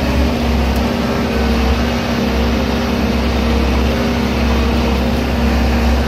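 Skid steer engine running steadily while the machine carries round hay bales, heard from the operator's seat.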